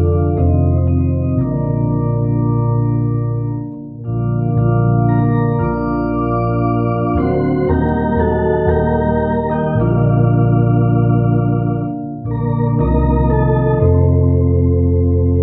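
Organ playing slow, held chords, with short breaks between phrases about four and twelve seconds in.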